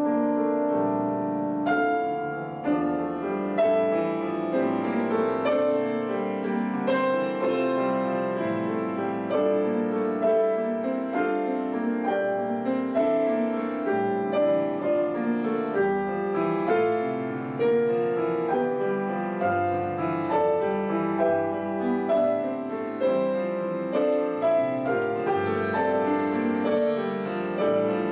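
Grand piano playing a solo passage of contemporary classical music: a steady run of struck notes and chords.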